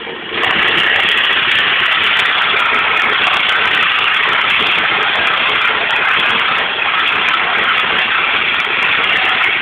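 Wood lathe running with sandpaper held against the spinning wooden workpiece: a loud, steady rushing hiss that sets in about half a second in.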